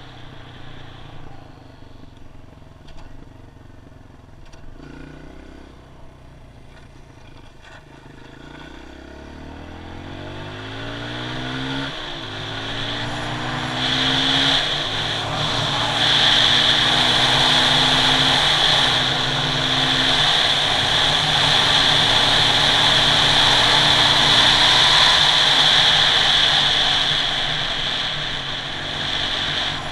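Kawasaki KLX140G's single-cylinder four-stroke engine running quietly at first, then accelerating with rising pitch and shifting up several times from about a third of the way in. Wind rush on the helmet-mounted camera builds with speed and becomes the loudest sound.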